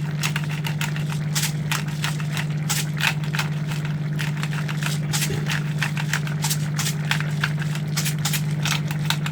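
Pot of vegetables in coconut milk boiling on the stove, with irregular crackling and clicks over a steady low hum.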